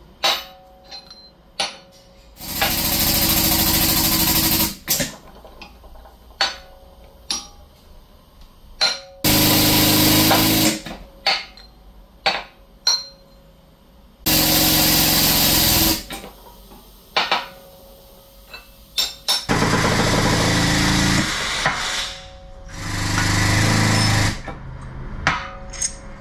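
A power tool, most likely pneumatic, runs in five loud bursts of about one and a half to two and a half seconds each. Between the bursts come sharp metallic clicks and knocks of hand tools, the work of removing and fitting suspension bushings.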